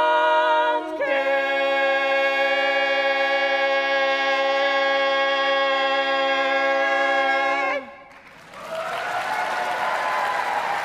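Mixed barbershop quartet singing a cappella. The chord moves about a second in, and the final chord is then held steady for about seven seconds before the voices cut off together. After a short pause, audience applause.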